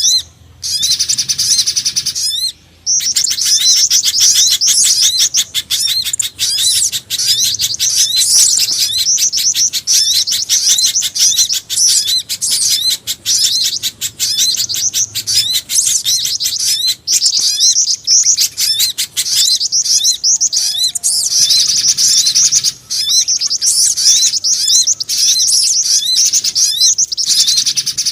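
Bird-lure recording of spiderhunter (pijantung gunung) and jingjing batu calls mixed together: fast, high-pitched chirping and trilling with only brief pauses, used to draw in small birds.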